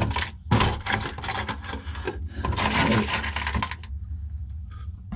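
Small stainless steel lock nuts and washers clinking and rattling as they are handled and fitted onto bolts, in two long stretches of dense clicking. A steady low hum runs underneath.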